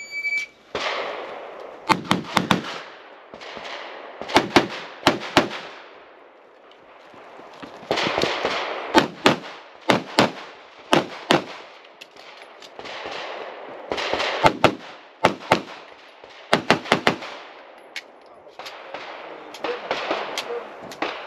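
A shot timer's start beep, then a pistol fired in quick pairs of shots: several strings of double taps over the course of an IPSC practical-shooting stage, with short pauses between the groups.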